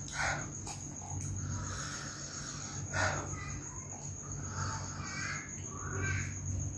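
Close-up eating sounds of cup instant fried noodles: chewing, slurping and forks scraping the cups, with a louder click about three seconds in. A steady high-pitched whine and a low hum run underneath.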